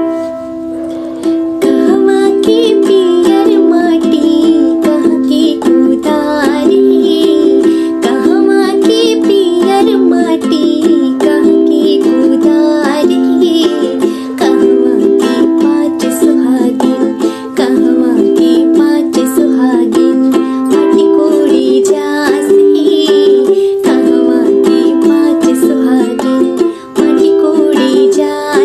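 Ukulele strummed in a steady rhythm, with a woman's voice coming in about two seconds in, singing a folk wedding song (vivah geet) over it.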